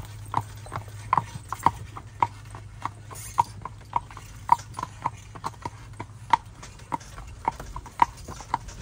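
A horse's hooves clip-clopping on a paved road as it pulls a buggy, sharp hoof strikes about two to three a second, slightly uneven, over a steady low rumble.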